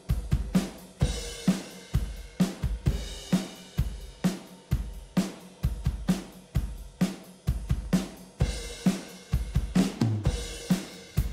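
Recorded drum kit playing a steady beat of about two hits a second: kick, snare, hi-hats and cymbals. It is heard through a Rupert Neve Designs 5254 diode-bridge compressor on the drum bus, which is being switched in and out.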